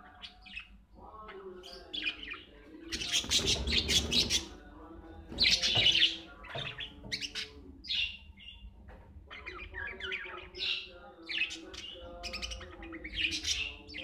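Caged budgerigars chattering: a run of short high chirps and warbles, with louder bursts about three and six seconds in.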